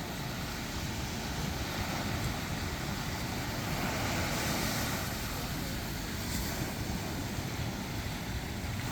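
Steady wash of ocean surf on the shore, with wind rumbling on the microphone.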